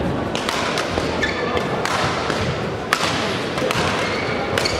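Badminton doubles rally: rackets striking the shuttlecock in a string of sharp cracks, the loudest about three seconds in, with shoes squeaking briefly on the synthetic court.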